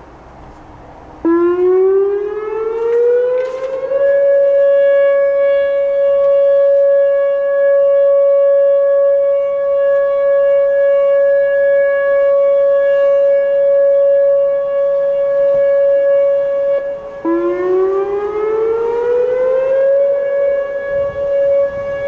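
Whelen WPS-2810 electronic outdoor warning siren, on an ESC-2030 controller board, sounding its alert tone. It starts suddenly about a second in and rises in pitch over about three seconds to a steady tone. Near the end it breaks off briefly and rises again the same way to the steady tone.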